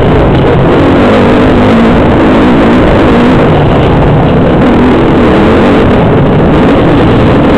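Yamaha YZ250 two-stroke dirt bike engine, heard close from the rider's helmet, running loud with its revs rising and falling continuously as it is ridden.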